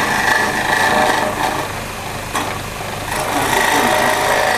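Homemade wood lathe running with a steady whine while a hand-held turning tool scrapes the spinning softwood disc. The cutting eases for about a second near the middle, with a single sharp tick.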